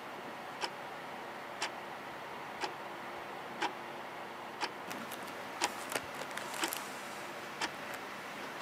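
A clock ticking once a second over a steady hiss, with a few extra softer clicks between the ticks around the middle.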